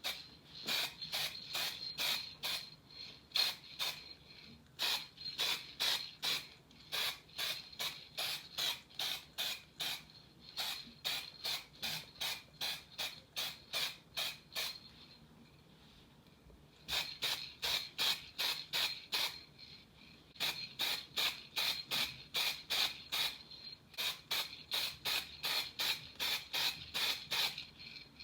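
Rapid, even back-and-forth rubbing strokes of hand abrasion on a small part, about three to four a second. The strokes pause for a couple of seconds around the middle, then resume at the same pace.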